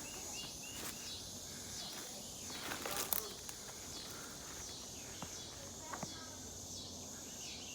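Insects chirping steadily in a repeating pulse about twice a second. Footsteps crunch on the forest floor, loudest about three seconds in, with a couple of sharp twig-like clicks later.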